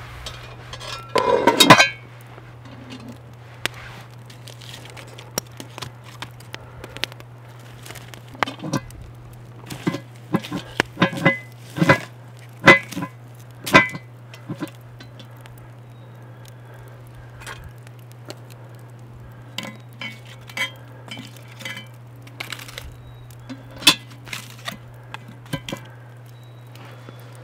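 Cast iron Dutch oven and lid clanking and scraping against metal tools (a lid lifter, then tongs) as the lid is handled and a log is set on top: a loud scrape about a second in, then irregular sharp clinks and knocks, densest in the middle and sparser near the end.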